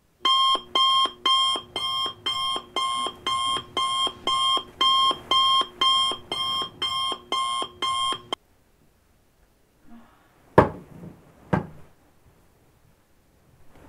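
Electronic alarm beeping about twice a second, waking a sleeper, cut off suddenly about eight seconds in. Two sharp thumps follow near the end.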